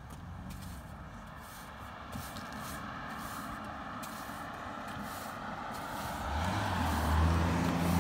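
A car approaching along the street, its tyre and engine noise growing steadily louder, with the engine's low drone coming in strongly over the last couple of seconds as it passes close by.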